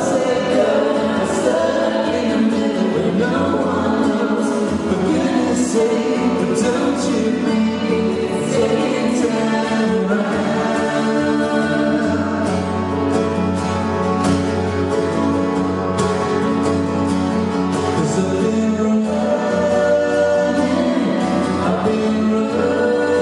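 Live band performing a song: singing over instrumental accompaniment.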